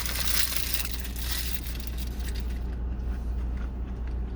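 Paper fast-food wrapper crinkling and crushing, loudest in the first second and a half, then a few faint crackles. A steady low hum runs underneath.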